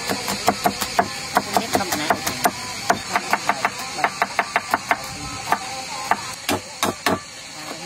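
Steel cleaver chopping red chilies and slicing fresh ginger on a wooden board: quick knocks of the blade against the wood, about four or five a second, thinning to a few spaced strokes near the end.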